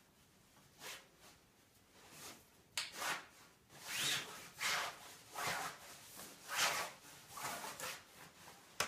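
Fabric drape rustling and rubbing as its sleeve is pulled along a PVC pipe pole: a run of swishes, a couple a second, loudest in the middle, with a sharp click near the end.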